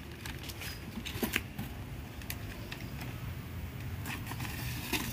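Clear plastic sheet crinkling as it is laid over the top of a wooden bee box and pressed down by hand: a scatter of short, light crackles and clicks.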